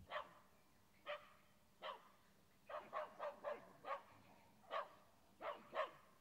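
Dog barking repeatedly: about a dozen short barks, some spaced out and some in quick runs of three or four.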